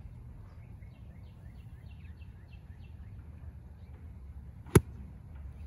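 A golf iron striking the ball off a turf hitting mat: one sharp crack nearly five seconds in, by far the loudest sound. Birds chirp in many short repeated notes throughout.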